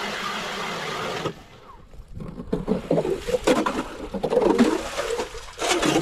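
Power ice auger running as it drills through lake ice, its motor cutting off suddenly about a second in. After a short lull comes irregular sloshing and splashing of water and slush at the freshly drilled hole.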